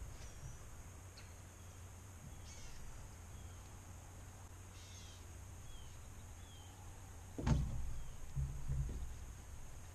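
Small birds calling with short downward chirps and brief trills over a faint steady high hum. About seven and a half seconds in comes a sudden knock, then a few dull thumps, as the angler sets the hook from the wooden dock.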